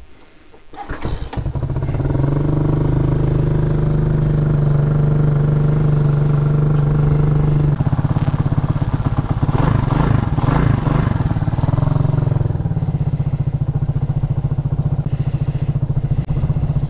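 A 230cc CG250 single-cylinder four-stroke motorcycle engine catches about a second in, with the choke on, and then idles steadily. Its idle note shifts about eight seconds in.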